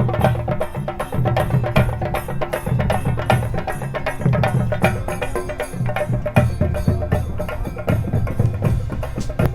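Background music with a quick, even percussion beat of wooden knocks over sustained bass notes.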